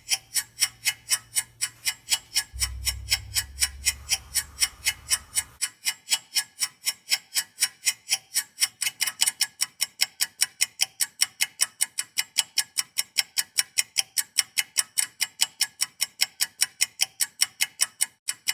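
Fast, even mechanical ticking, about five ticks a second. A low hum under it stops about five seconds in.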